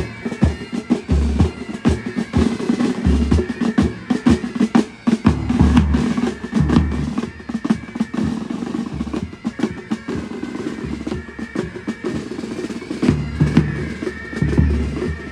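Military band drums playing: rapid snare drum rolls with heavy bass drum beats at intervals.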